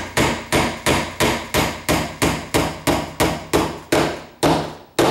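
Claw hammer driving a four-penny finish nail into a pre-drilled hole in a wooden cabinet face frame: quick, steady light blows, about three a second, with a last strike near the end as the nail goes in tight.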